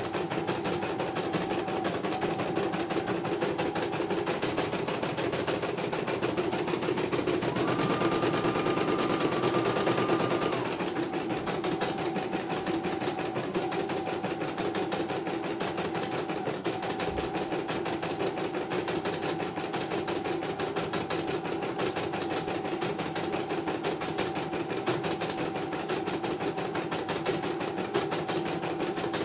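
CNY portable computerized embroidery machine stitching, a rapid, steady clatter of needle strokes. It gets louder, with a higher whine added, for about three seconds near the middle.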